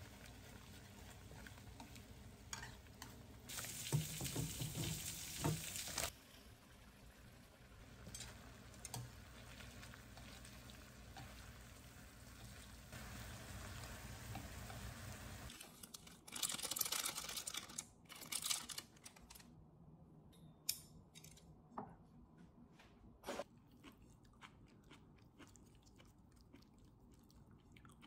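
Buldak noodles and sauce simmering and sizzling in a frying pan over a gas burner while being stirred with chopsticks, with louder stirring bursts a few seconds in. About halfway the steady simmer stops; a couple of louder bursts of noise follow, then faint scattered clicks and taps.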